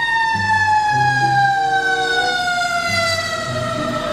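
Fire-truck siren sound: one long wail that slowly and steadily falls in pitch, like a siren winding down.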